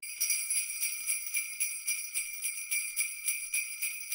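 Sleigh bells jingling in a steady rhythm, about four shakes a second.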